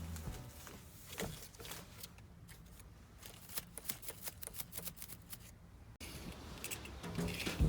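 A quick run of crisp clicks and rustles from material being handled or cut by hand, as background music fades out; the music comes back in at the very end.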